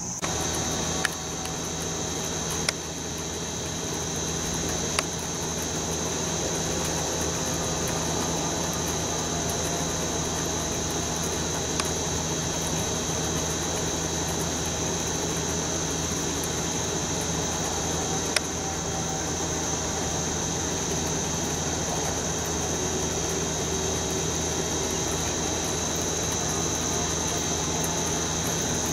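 Steady outdoor ambience: a continuous high-pitched insect drone over a low machine hum, broken by a few sharp clicks, three in the first five seconds and two more later on.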